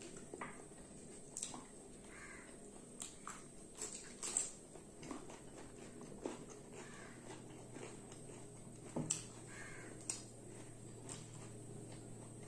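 Eating sounds of people eating rice and chicken curry by hand: chewing and lip smacks in scattered short clicks, the loudest about four seconds in and again about nine seconds in.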